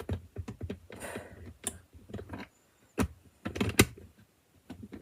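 LEGO plastic pieces being handled and pressed together, a run of light clicks and taps with a few sharper snaps as a section is fitted back on.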